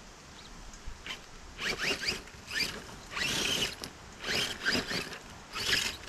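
Axial Capra 4WS RC crawler's brushless motor (Hobbywing Fusion SE 1800KV) whining up in several short throttle bursts through its geared drivetrain, with tyres scrabbling on dirt and rock as the truck tips over onto its side.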